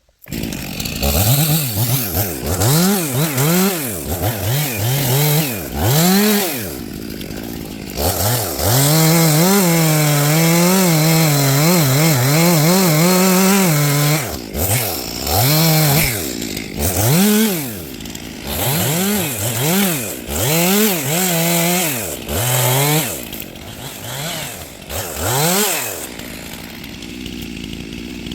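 Two-stroke chainsaw bucking a felled tree into logs, revved up and down in repeated short bursts, with one longer steady full-throttle run of about six seconds some eight seconds in. Near the end it drops back to idle.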